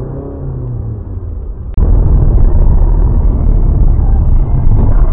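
Low rumble of a moving car as picked up by a dashboard camera's microphone: engine and road noise. About two seconds in it jumps abruptly to a much louder, heavier rumble.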